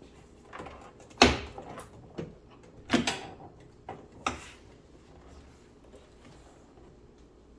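Knocks and clatters from handling parts of a car's rear door during reassembly: about six separate knocks in the first four and a half seconds, the sharpest a little over a second in and at about three seconds.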